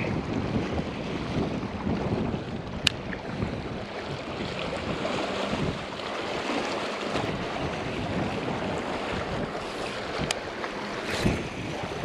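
Strong wind gusting across the microphone in an uneven rush, with a faint low hum under it for the first several seconds and two sharp clicks, one about three seconds in and one near the end.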